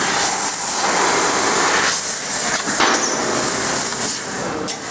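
Fiber laser cutter cutting 1.5 mm stainless steel sheet: a loud, steady hiss from the cutting head's gas jet and cut, dropping briefly about three times.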